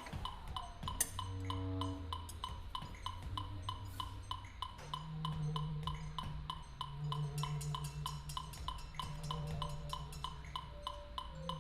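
Contemporary chamber music: a bass clarinet holds long low notes over a steady ticking pulse of about four clicks a second, with higher held notes entering near the end.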